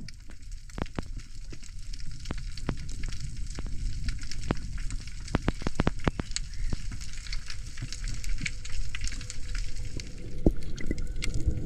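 Underwater reef crackle: dense, scattered sharp clicks over a low rumble of moving water.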